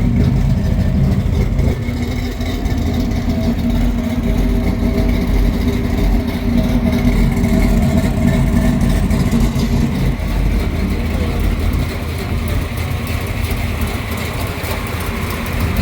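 The V8 engine of a 1972 Chevrolet El Camino SS running steadily, easing off slightly in the second half.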